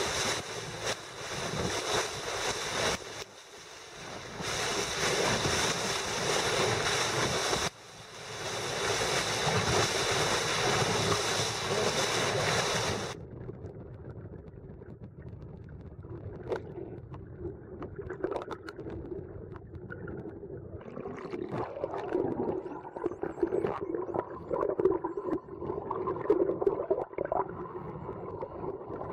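Wind and rushing water against a fast-moving boat hull, with spray hissing. About halfway through it gives way to the muffled sound of the sea heard underwater, with scattered faint clicks.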